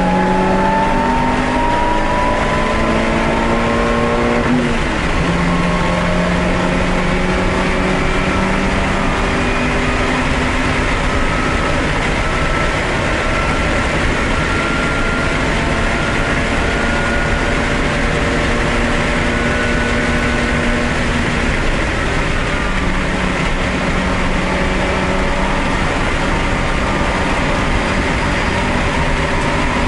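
Race car at full throttle heard from inside the cabin: the engine note climbs for the first few seconds, drops at an upshift about four and a half seconds in, then holds steady at high speed under heavy wind and road noise.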